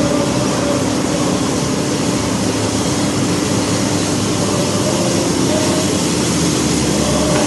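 Loud, steady mechanical drone with a low hum: a grain tipper truck's engine and the intake machinery of a corn receiving pit running while the truck unloads.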